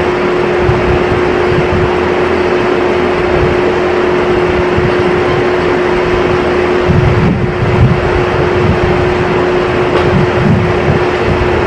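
Steady machinery hum with one constant mid-pitched tone, briefly heavier and rumbling about two-thirds of the way through.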